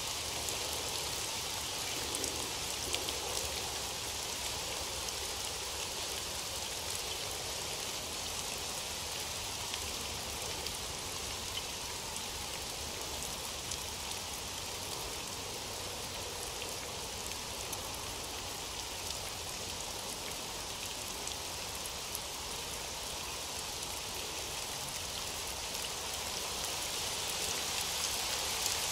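Steady rain falling: an even hiss with scattered light drop ticks, growing a little louder near the end.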